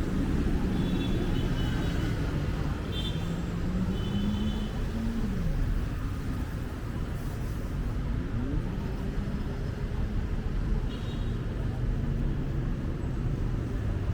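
Busy city road traffic: a steady rumble of passing cars and buses, with engines rising and falling in pitch as vehicles speed up and slow down. A few short high chirps sound in the first few seconds and again near the end.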